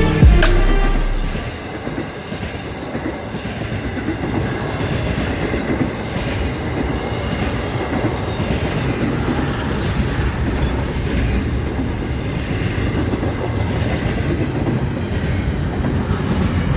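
Music fades out in the first second and a half, then a freight train rolls past with a steady rumble and the clickety-clack of its wheels over the rail joints.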